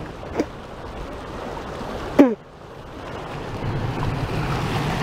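Rushing floodwater: a steady noise that grows louder over the last couple of seconds, with two brief cries about half a second and two seconds in.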